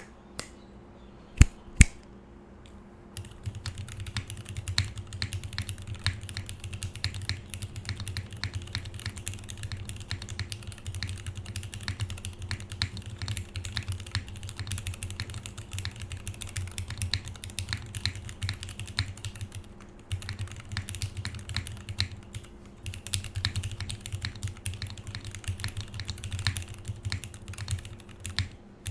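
Steady typing on a full-size mechanical keyboard with lubed and filmed vintage Cherry MX Black linear switches on a plastic plate and GMK doubleshot ABS keycaps, each keystroke carrying a bassy thud from the table beneath. Two sharp clicks come shortly before the typing starts about three seconds in, and the typing pauses briefly about two-thirds of the way through.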